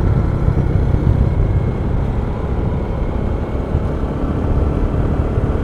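Steady low rumble of a vehicle driving along a road, heard from on board.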